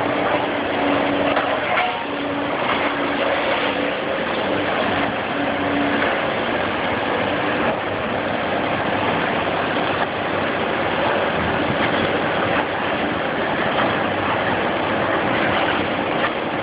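Volvo hydraulic excavator's diesel engine and hydraulics running steadily while it works an orange demolition shear through rubble.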